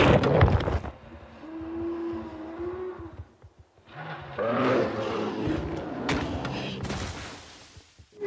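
Dinosaur-fight sound effects: a crash, then a long drawn-out pitched roar, and after a brief pause a second, denser bout of roaring mixed with hits and bites that fades out near the end.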